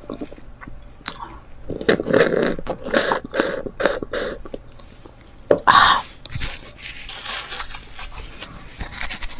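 A person drinking and chewing a pink crushed-ice drink from a plastic cup: a run of regular gulps or crunches about two a second, then one louder, sharper mouth sound about six seconds in, followed by softer chewing.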